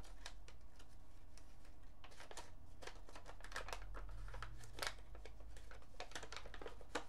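Orange paper mailing envelope being pulled and torn open by hand: irregular crinkling and short tearing sounds, with one sharper crackle near the five-second mark.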